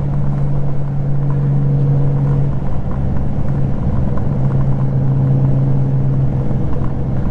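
Honda Gold Wing GL1500 flat-six engine running steadily at highway cruising speed, a low even drone over wind and road rumble. The engine note eases briefly a few seconds in, then returns.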